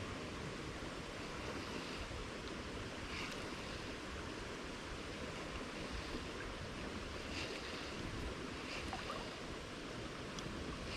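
Steady rush of flowing creek water, with some low wind rumble on the microphone. A few faint, brief high-pitched sounds come through now and then.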